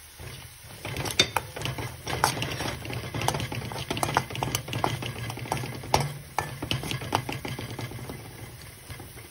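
A metal spoon stirring and scraping onion and chilli powder around a metal wok, with irregular clinks of the spoon against the pan, busiest through the middle and thinning out near the end.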